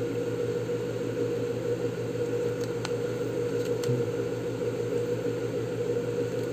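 Steady hum and whir of an electric fan running, with a few faint ticks about halfway through as fingers press a plastic film onto a motorcycle gauge's LCD panel.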